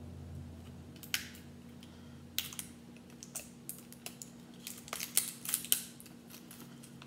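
Sharp clicks and crackles of a small cardboard lipstick box and its plastic wrapping being opened by hand, scattered at first, then coming quickly one after another about five seconds in, over a faint steady hum.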